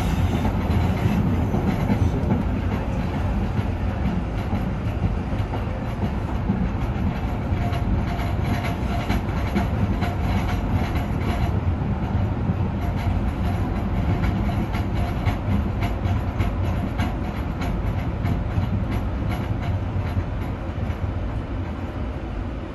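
MBTA Green Line light-rail train running on the rails, heard from inside the car: a steady rumble with rail clicks, growing quieter near the end as it slows into a station platform.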